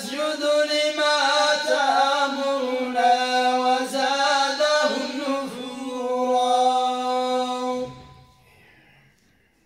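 Men chanting Quranic verses in unison in the Moroccan Filali melodic style, a slow line of long held notes into a microphone. The phrase ends about eight seconds in and fades into a short pause.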